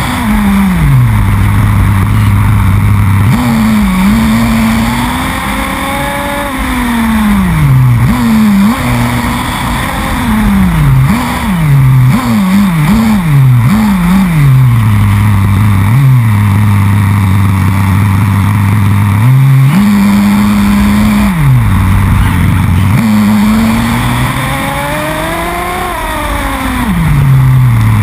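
Two-stroke nitro glow engine of an XTM X-Terminator 2 RC buggy, heard from on board, revving up and down as the buggy drives. Long steady runs alternate with a burst of quick throttle blips near the middle and two longer high-rev pulls near the end, over a steady hiss of tyre and road noise.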